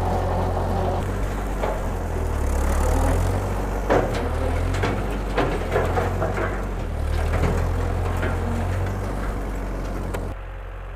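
1948 Ford 8N tractor's four-cylinder flathead engine running under load while its PTO drives a Woods M5 rotary cutter through brush, with scattered sharp cracks of stems and branches being cut. About ten seconds in the sound drops abruptly to a quieter, steadier engine hum.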